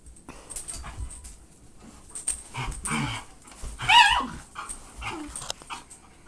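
Dogs play-fighting: scuffling and whimpering, with a loud high-pitched yelp about four seconds in.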